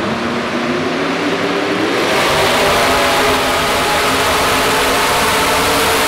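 Small-block V8 engine of a 4x4 pulling truck revving up, then going to full throttle about two seconds in and running loud and steady under the load of the pulling sled.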